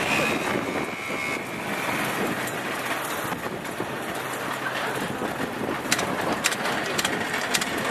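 Motor vehicle engine noise under a steady wash of paddock noise, with a few sharp clicks near the end.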